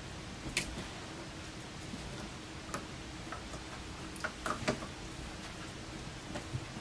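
Faint scattered clicks and light taps over a low steady room hum, with a small cluster about four to five seconds in, as a saluki moves through a hula hoop that knocks against him.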